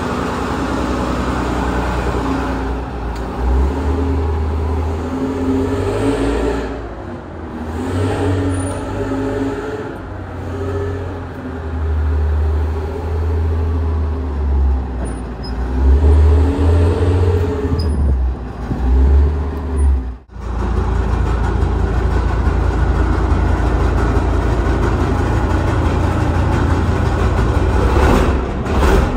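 Centurion BARV's Rolls-Royce Meteor V12 petrol engine running after a fresh start, its loudness swelling and easing for the first twenty seconds. It drops out abruptly for an instant about twenty seconds in, then runs on at a steadier level.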